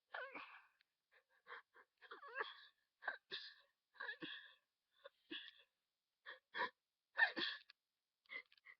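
A person in a sneezing fit set off by sniffing flowers: about a dozen short gasping in-breaths and sneezes in quick succession, the strongest about seven seconds in.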